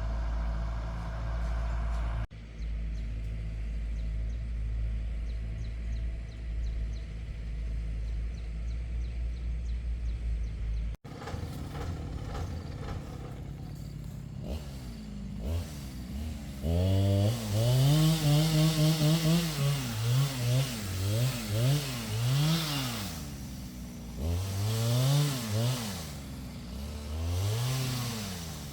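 A vehicle engine's low steady rumble for about the first eleven seconds, then a chainsaw revving again and again, its pitch rising and falling.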